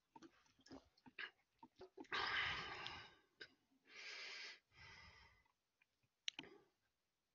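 A man's breathing close to a headset microphone after a drink: a few small swallowing clicks, then a loud exhale about two seconds in, followed by two quieter breaths and a single click near the end.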